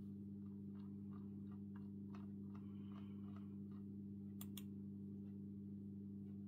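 Light clicks on a laptop, a run of faint ticks about three a second followed by two sharp clicks in quick succession about four and a half seconds in, as the next page is opened, over a steady low hum.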